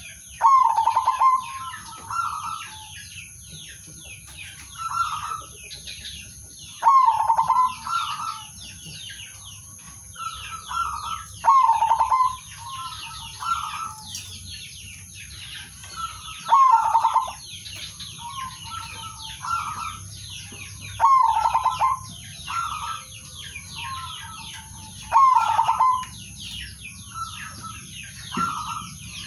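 Male zebra doves cooing: a short phrase of staccato coos repeats about every two seconds, louder and quieter phrases in turn, over constant high-pitched chirping.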